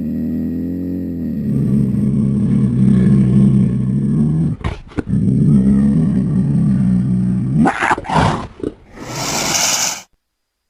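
Cougar growl sound effect: long, low, steady growls broken by two sharp clicks about halfway through, then short snarls and a hiss that cuts off suddenly near the end.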